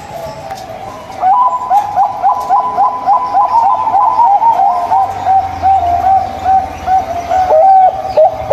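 Zebra dove (perkutut) cooing: a quick run of short, bubbling coo notes starting about a second in, slowing into longer, spaced notes toward the end.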